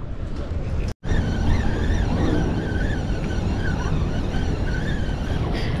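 Wind buffeting the microphone over choppy harbour water, a steady low rumble that starts after a brief dropout about a second in, with a faint whine wavering up and down above it.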